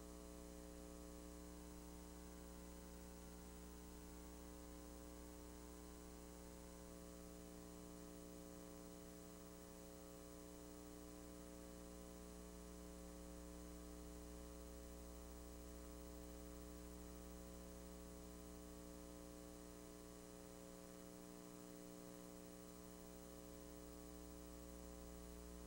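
Near silence except a faint, steady electrical mains hum made of several fixed tones, with no other sound.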